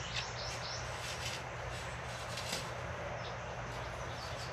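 Short, high bird chirps over a steady low hum, with a faint tap about two and a half seconds in.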